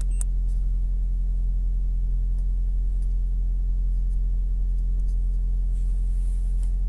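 Toyota hybrid's petrol engine idling steadily, a low even hum heard from inside the cabin. A few light clicks of scan-tool buttons are heard, the clearest just after the start.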